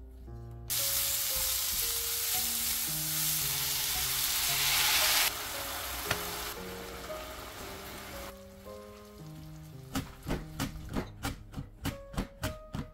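Sliced burdock root sizzling as it is stir-fried in a wok, loud for the first few seconds and then fading. Near the end comes a run of sharp, quick strokes, about four a second, as zucchini is pushed across a mandoline slicer's wavy blade.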